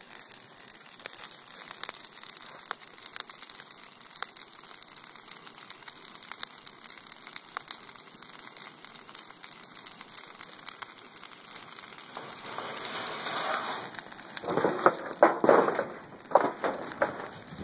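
Large rubber tire burning on a steel rim, crackling with many small pops and sputters. Near the end a louder rush and irregular knocks come in.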